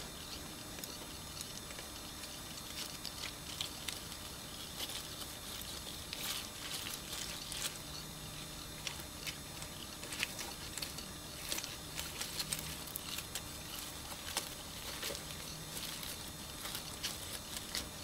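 Manual wheelchair rolling over river cobbles and gravel: irregular clicks and crunches of stones under the tyres, getting busier about six seconds in.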